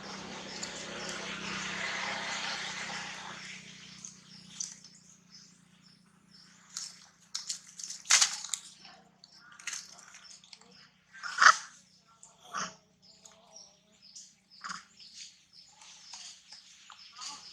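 Monkeys giving scattered short squeaks and calls among high chirps, the sharpest and loudest about eleven seconds in. Over the first four seconds a rushing noise swells and fades.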